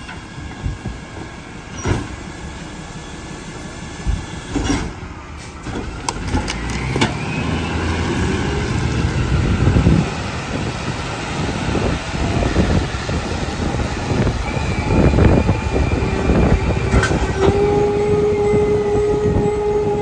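McNeilus rear-loader garbage truck at work. A few knocks of cans against the hopper come first, then the packer cycles with the engine revved and a rising hydraulic whine. Near the end a steady whine sets in as the truck pulls away.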